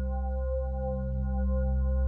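Background music: ambient, with sustained held tones over a low drone.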